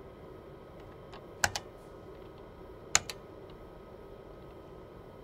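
Two single keystrokes on a vintage IBM PC keyboard, about a second and a half apart. Each is a sharp clack followed at once by a softer click as the key comes back up. A faint steady hum runs underneath.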